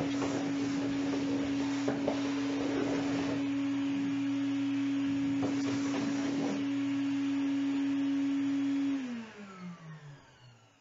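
Shop vacuum running with a steady whine as its hose nozzle is worked over wooden hull planking, with a few knocks of the nozzle on the wood. About nine seconds in the motor is switched off and its whine falls in pitch as it spins down.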